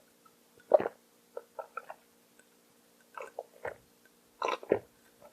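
Close-up mouth sounds of eating noodles: chewing and wet smacking in a few short, separate bursts, the loudest about a second in.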